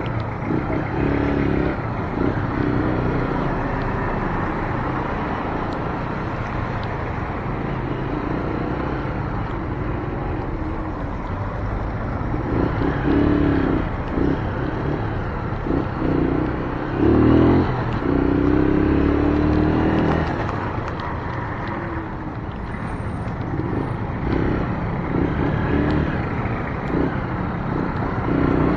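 Keeway Brusco 125 motorcycle's single-cylinder four-stroke engine running while riding in slow traffic on a wet road, with tyre noise and the engines of other vehicles around it. The engine note rises and falls with the throttle and is briefly louder about seventeen seconds in.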